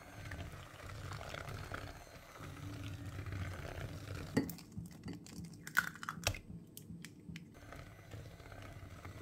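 Electric hand mixer running, its twin wire beaters churning a thick avocado-and-butter batter as an egg is beaten in, with a steady low motor hum. A few sharp knocks come about four to six seconds in.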